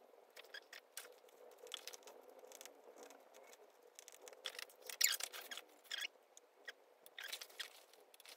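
Faint, irregular rustling and small crackles of stiff canvas being handled while a needle and thread are worked through it by hand, with a cluster of louder scratches about five to six seconds in.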